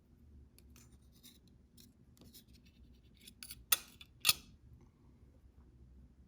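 Small scraping and clicking as the layers of a heated metal credit card are pried apart, with two sharp clicks about half a second apart a little past the middle.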